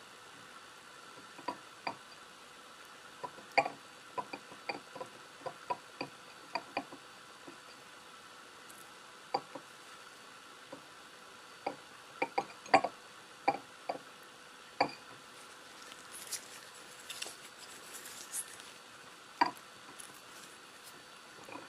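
Wooden chopsticks clicking and tapping against a ceramic plate and each other while picking at soft canned fish in sauce: irregular sharp clicks, with a short soft rustle about three-quarters of the way through.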